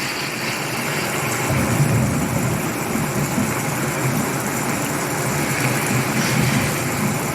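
Steady hiss of rain, with a low rumble coming in about a second and a half in.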